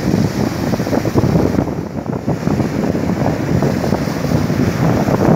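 Strong wind buffeting the microphone over the rush of rough Atlantic surf breaking on the shore.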